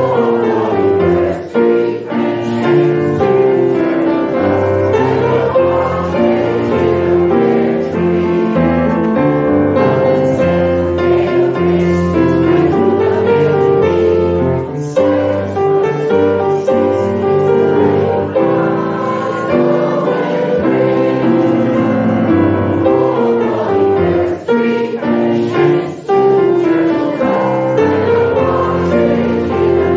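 A group of adults and children singing a Christmas carol together, accompanied by a grand piano.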